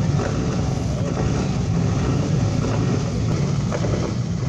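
Steady low rumble of wind on the microphone, with car engines running in the background.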